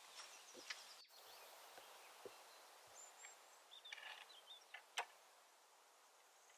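Quiet woodland ambience: faint bird chirps now and then over a soft hiss, with a few small clicks and crackles, the sharpest click about five seconds in.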